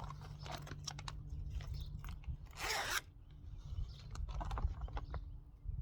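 Plastic tree watering bag being handled: scattered crinkles and crackles, with a louder rasping, tearing-like rush about two and a half seconds in, over a steady low rumble.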